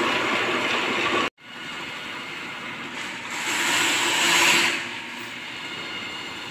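Drain-cleaning machine running steadily as its spiral auger cable turns in the waste pipe. A little over a second in, the sound drops out abruptly and returns quieter, with a louder hiss for about a second and a half in the middle.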